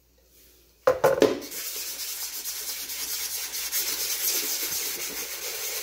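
80-grit sandpaper rubbed by hand back and forth over a cured resin surface: a steady, scratchy hiss starting about a second and a half in. A couple of knocks sound just before the sanding starts.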